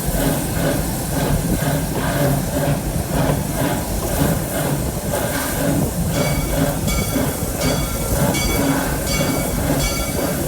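Amusement-park steam train rolling along its track, heard from aboard: a steady rumble of wheels and coaches with hiss. About six seconds in, a clear ringing joins and repeats about once every 0.7 s.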